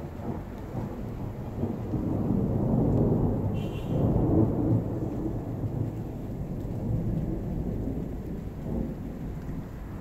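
Thunder rumbling, swelling to its loudest about three to five seconds in, then slowly dying away.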